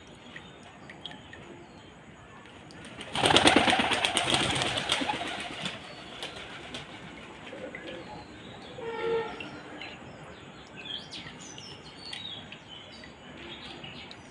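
Domestic pigeons' wings flapping in a loud burst of rapid clatter about three seconds in, fading over the next two seconds. Quieter bird calls follow.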